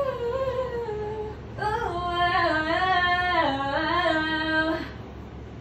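A woman singing unaccompanied in two phrases of held, stepping notes. The first trails off about a second and a half in, and the second, lower phrase runs until shortly before the end and stops.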